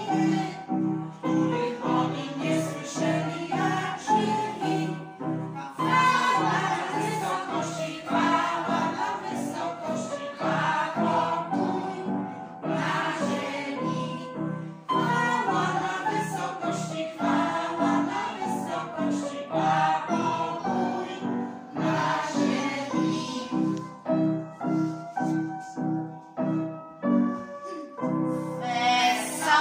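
Children's choir singing a Christmas song, accompanied by an upright piano played in steady repeated chords. The voices come in phrases with short stretches of piano alone between them.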